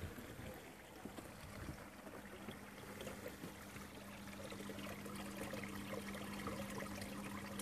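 Water trickling and splashing into a garden pond, with a faint steady low hum joining about three seconds in.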